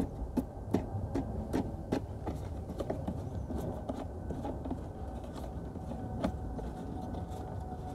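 Small plastic clicks and knocks as plastic fastening nuts are screwed on by hand to clamp a lawn scarifier's handle; the clicks come several a second for the first three seconds, then thin out over a low steady rumble.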